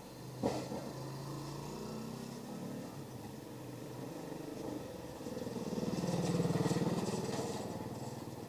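A passing vehicle's engine: a low hum that swells to its loudest about six seconds in and then fades, with one sharp click near the start.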